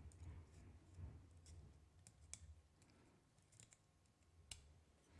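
A handful of faint, sharp clicks from metal tweezers against a circuit board's pins as a desoldered, faulty J42CG PNP balance transistor is worked loose.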